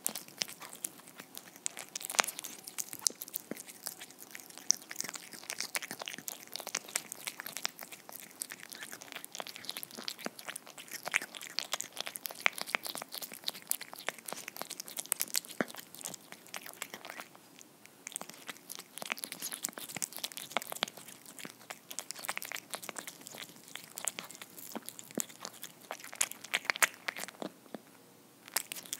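A cat eating soft homemade tuna cake from a ceramic bowl, close-miked: wet chewing, licking and many quick sharp clicks and smacks of mouth and teeth, with a couple of brief pauses.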